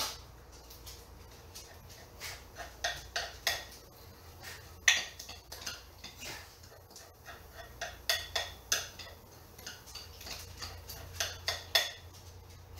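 Cooking utensils clinking and tapping against a pan and a bowl while pancake batter is cooked: a string of sharp, irregular taps, some with a brief ring, the loudest about five seconds in. A low steady hum runs underneath.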